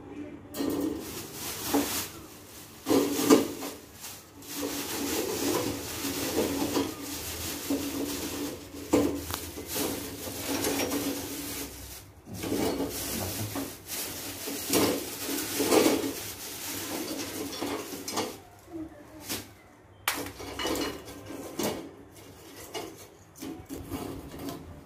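Lumps of charcoal tipped out of a plastic bag onto a metal stove grill: irregular clattering and knocking of charcoal on metal and on other lumps, with the bag rustling.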